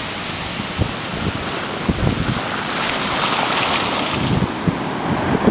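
Ocean surf breaking and foamy wash rushing up the sand and over bare feet, growing louder about three seconds in, with wind buffeting the microphone in low thumps.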